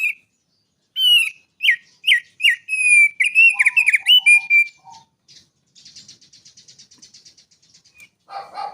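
A songbird singing: a quick run of loud, sharp whistled notes, then a fainter, fast buzzy trill, and a lower call near the end.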